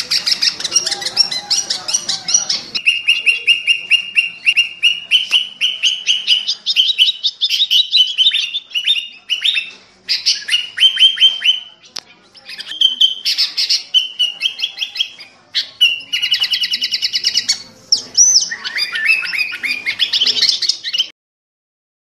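Sooty-headed bulbul (kutilang) calling close up: long runs of rapid, short chattering notes in bursts with brief pauses. The calls stop abruptly about a second before the end.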